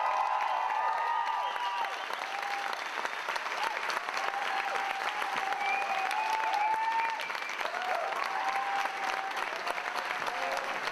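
Audience applauding and cheering, loudest in the first second and carrying on steadily.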